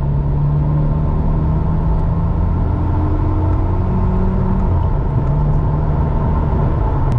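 Volkswagen Golf GTI MK2's 8-valve four-cylinder engine pulling under acceleration, heard from inside the cabin, its pitch climbing slowly, with a drop in pitch about five seconds in. It pulls cleanly with no stutter or misfire, the fuel starvation from the perished hose on the in-tank pre-pump now cured.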